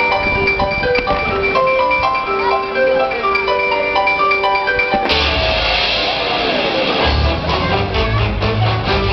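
Music with a melody of short bell-like mallet notes that changes abruptly about five seconds in to a fuller, noisier section with heavy deep bass.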